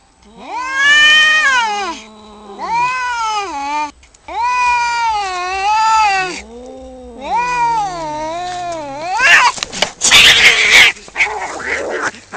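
Two cats caterwauling in a standoff: long, drawn-out yowls that rise and fall in pitch, one voice low and one high, overlapping. About nine seconds in they break into a harsh, noisy flurry of hisses and screeches as the fight flares.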